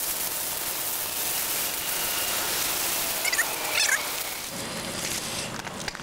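Garden hose spraying water onto a metal cabin air filter and the concrete beneath it: a steady splashing hiss that stops about four and a half seconds in.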